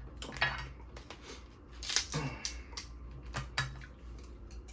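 Dungeness crab shell being cracked and broken open by hand: several sharp cracks and snaps, the loudest about two seconds in, with quieter handling sounds between.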